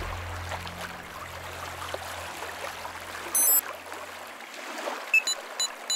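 A low drone of film score fades away over a steady watery hiss of shore ambience. A short high electronic chirp comes a little past the middle, and a quick run of small electronic beeps near the end, from the soldier's handheld communicator signalling an incoming message.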